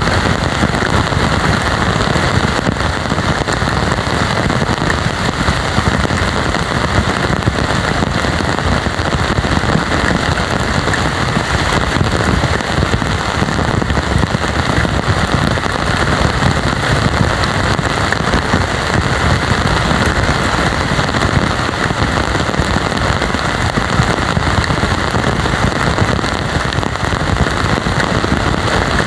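Heavy rain falling, a dense, steady downpour with no let-up.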